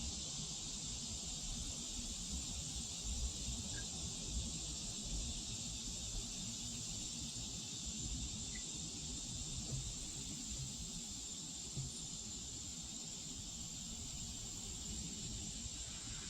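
Steady high-pitched insect chorus, a continuous shrill drone that does not let up, over a low uneven rumble of wind on the microphone.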